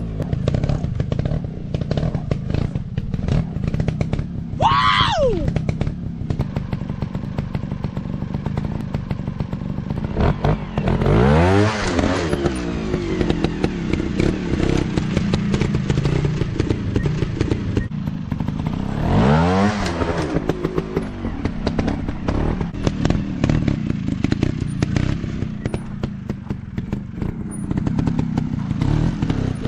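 Dirt bike engine running at low revs, revved up sharply and let fall back twice, about a third and two-thirds of the way in. A brief high rising-and-falling whine comes about five seconds in.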